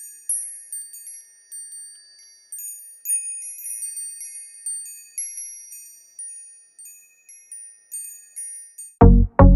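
Sparkling chime effect of a logo intro: many high, bell-like notes ringing and overlapping. About nine seconds in, two loud, bass-heavy hits come in as an electronic music track starts.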